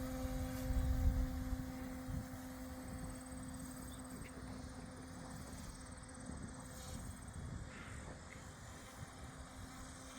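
Goosky S1 RC helicopter hovering, its electric motors and rotors giving a steady buzz at one pitch. A low wind rumble on the microphone is strongest about a second in.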